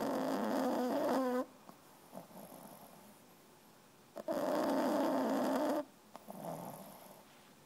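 French bulldog puppy snoring in her sleep: two long, loud snores about four seconds apart, each lasting about a second and a half, with a fainter snore between breaths near the end.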